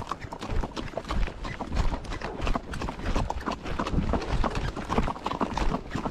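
Horse's hooves striking a dirt road in quick, continuous hoofbeats.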